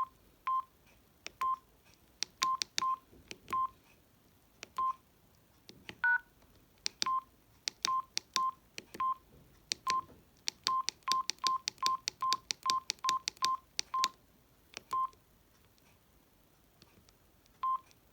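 Samsung SGH-D600 mobile phone's keypad tones: short beeps all on one pitch, each with a key click, about twenty of them at uneven intervals and in a quick run around the middle. About six seconds in there is one different two-note blip.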